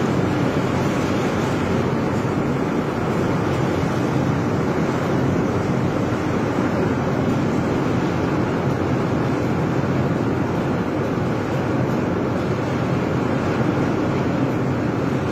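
Heavy rain pouring down in a steady downpour.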